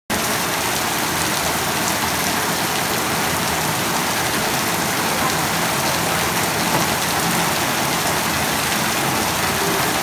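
Heavy rain falling steadily on a wet, puddled courtyard and the leaves of the surrounding trees: a dense, even hiss of drops that doesn't let up.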